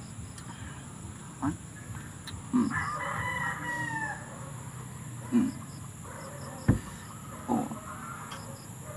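A rooster crowing once, a call of about a second and a half starting between two and three seconds in, with a few short clucks around it and a single sharp knock a little before the end.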